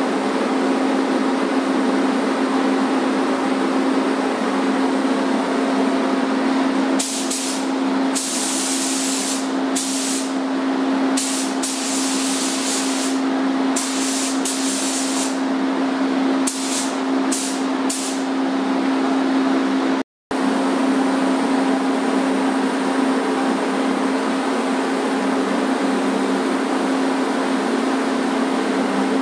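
Steady drone of a paint booth's ventilation with a low hum. Through the middle stretch, a paint spray gun hisses in a series of short and longer bursts as its trigger is pulled and released while spraying paint onto metal trim.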